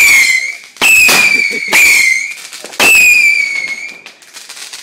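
Whistling fireworks going off one after another: each starts with a sudden crack-like onset and a shrill whistle that falls slightly in pitch over about half a second to a second. About four whistles in a row, one already sounding at the start and the last fading out near the end.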